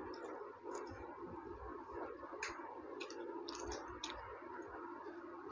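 Faint eating sounds from chicken curry and rice being eaten by hand, with scattered small clicks.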